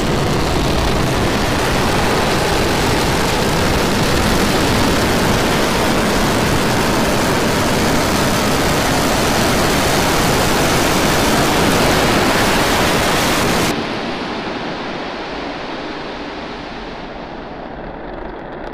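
Steady roar of SpaceX Starship SN10's Raptor rocket engines firing for the landing burn, cutting off suddenly about 14 seconds in as the engine shuts down at touchdown. A fading low rumble follows.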